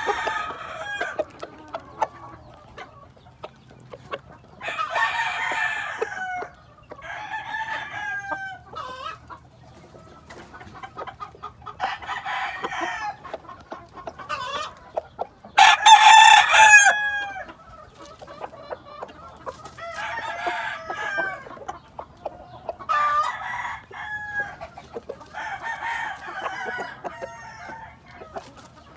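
Roosters crowing again and again, about eight crows of a second or two each, the loudest about sixteen seconds in, with hens clucking in between.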